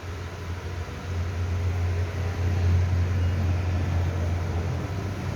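Inverter welding machine in use: a low buzz under an irregular crackling hiss, growing louder about a second in.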